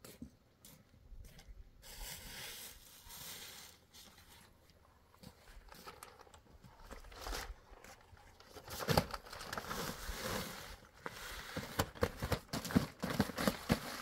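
Clear plastic sheeting crinkling and rustling as it is unrolled and smoothed out on the ground, with many small crackles and clicks. It grows louder and busier in the second half.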